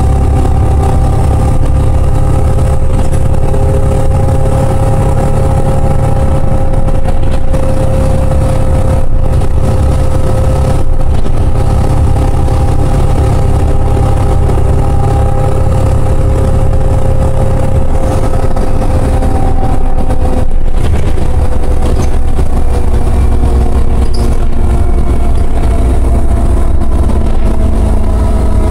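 Interior of a LiAZ 5292.60 city bus under way: its rear-mounted diesel engine and drivetrain running with a steady low rumble and a whine. The whine slides down in pitch over the last third.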